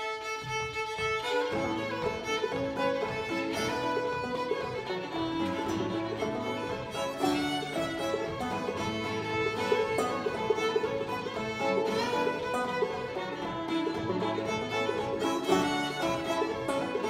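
Old-time string band of two fiddles, banjo and acoustic guitar playing a tune together. The fiddles hold a long note at the start, then the full band breaks into the rhythmic tune about a second in.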